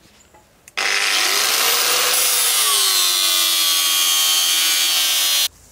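Angle grinder with a 40-grit flap disc grinding weld off mild-steel plate: a loud, steady high whine that starts suddenly about a second in, sags slightly in pitch as it works, and cuts off sharply near the end.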